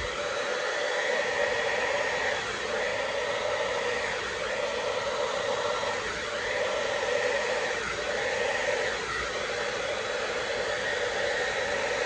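Conair Infinity Pro hair dryer running steadily on its low setting, blowing air across wet poured acrylic paint: a constant rush of air with a steady hum in it.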